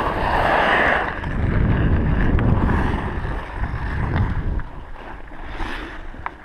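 Hockey skate blades scraping and gliding on pond ice, with wind buffeting a head-mounted action camera's microphone as a low rumble that eases off about four and a half seconds in. A few faint sharp clicks come through.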